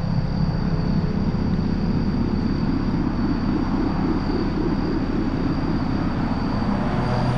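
Electric blower fan of a 12-foot airblown inflatable ghost running, a steady low rumble.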